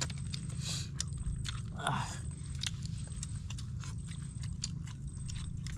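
Close-up eating sounds: people chewing fish in sweet and sour sauce, with many sharp little clicks of lips and fish bones, over a steady low rumble. A brief murmur of voice comes about two seconds in.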